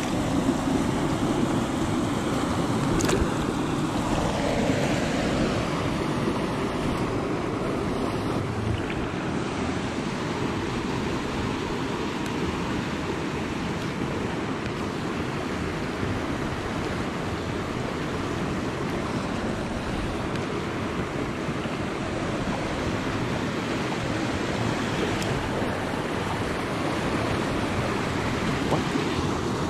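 Steady rush of water from a shallow stream riffle.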